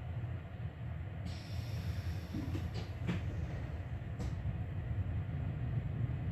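Passenger train pulling away from a station, heard from inside the carriage: a steady low rumble that grows slowly louder, with a hiss coming in about a second in and a few faint clicks.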